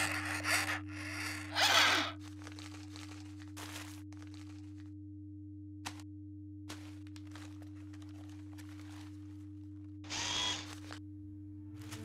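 Sound effects for an animated robot's movements: a steady low machine hum, with several brief mechanical whirs in the first two seconds and another about ten seconds in, and a single click near the middle.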